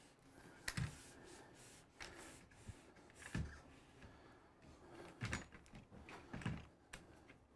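Handling of a Smallrig AD-01 video tripod and its head: about half a dozen faint clicks and knocks spread out over several seconds.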